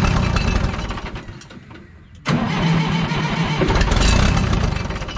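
1969 Minneapolis-Moline U302 diesel tractor engine being started on ether: it fires and then dies down, and about two seconds in it starts up again suddenly and loud, easing off near the end. The smoky, stumbling start on an ether shot is typical of a cold diesel that is hard to start.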